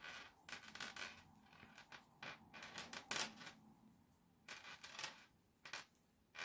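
Faint, irregular scratchy rustles of cotton yarn drawn through stitches with a crochet hook as hands work the stitches.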